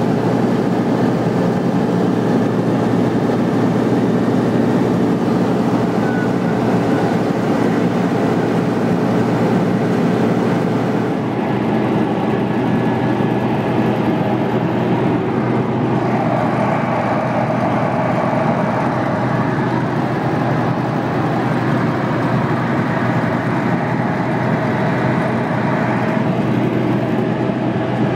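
Tecnam Sierra light aircraft in cruise, its Rotax 912 four-cylinder engine and propeller giving a steady drone inside the cabin. The tone shifts about eleven seconds in, and a higher hum joins it for about ten seconds in the middle.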